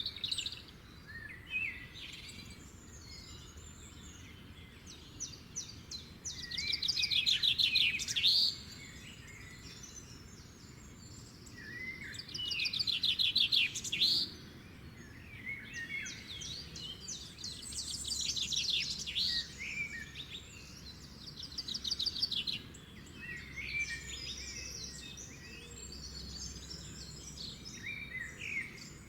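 Songbirds singing: three loud, rapid trilled phrases a few seconds apart, with scattered chirps and short whistles from other birds between them.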